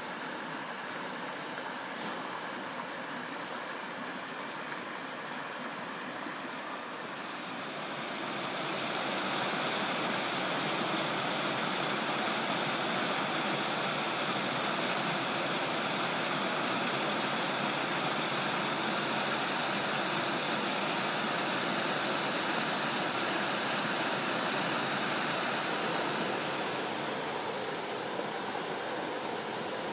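Waterfall rushing, a steady roar of falling water that grows louder about eight seconds in and eases back a little near the end.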